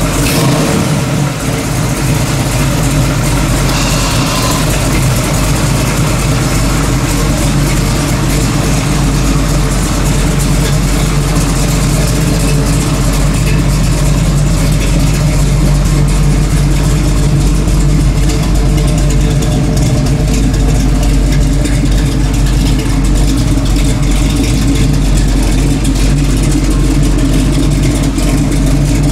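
GM Performance Parts 502 cubic-inch big-block V8 in a 1967 Chevrolet Camaro RS/SS, idling steadily and loud.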